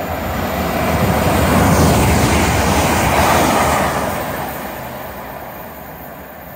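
GWR Class 387 Electrostar electric multiple unit passing at speed: wheel-on-rail noise builds over the first two seconds, peaks, then fades away over the last few seconds.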